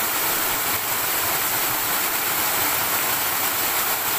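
Small waterfall pouring down a rock chute into a pool: a steady rushing of falling water.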